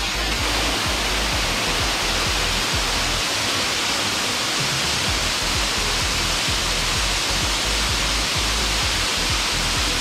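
Waterfall rushing steadily as it cascades down a rock face: an even hiss with a low rumble beneath it.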